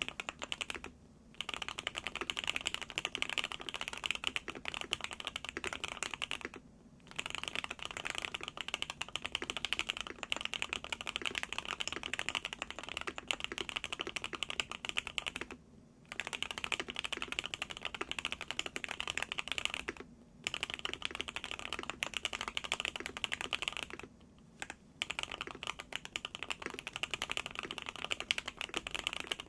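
Fast, continuous typing on a Qwertykeys QK65 mechanical keyboard with hand-lubed Gateron Oil King linear switches, a POM plate and a two-layer tape mod. The keystrokes run in long runs, with short breaks about five times.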